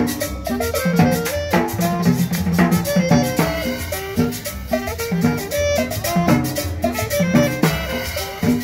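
Latin dance band music with a steady beat, drums and brass or woodwind melody.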